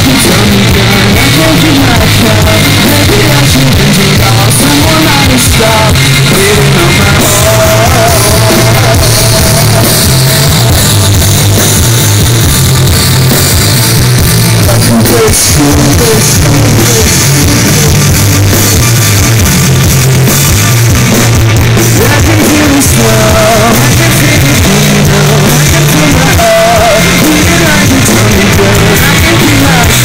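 Live rock band playing loudly: distorted electric guitar, bass and drum kit. The phone recording sits close to the stage amplifiers, so the sound is overloaded and distorted throughout.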